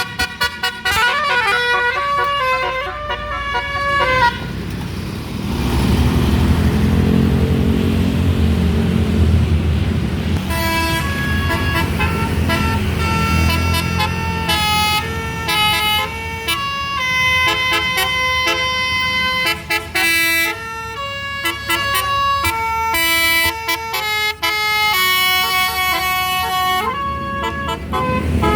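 Bus telolet (basuri) multi-tone horn: a few seconds of horn tones sliding up and down, then a low engine rumble. From about ten seconds in, the horn plays a long, quick melody of stepped notes that stops near the end.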